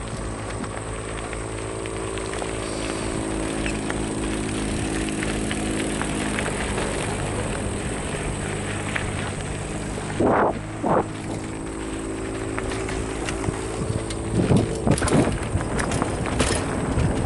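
Mountain bike rolling down a gravel trail, heard from a helmet camera: steady tyre and wind noise with a low hum underneath, two short louder sounds about ten seconds in, and rougher, louder noise near the end.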